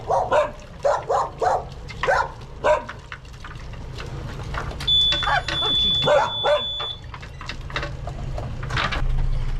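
A dog barking and yapping in short, repeated barks, over the steady low hum of a boat engine. A high, steady electronic beep sounds for about two seconds midway.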